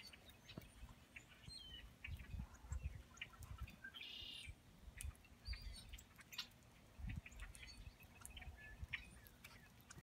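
A flock of small songbirds gives scattered short chips and chirps, with one longer buzzy call about four seconds in. Soft low thumps come and go beneath them.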